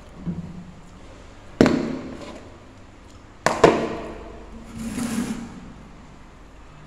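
Two sharp knocks about two seconds apart, the second one a quick double, each trailing off briefly, then a softer rustle about five seconds in.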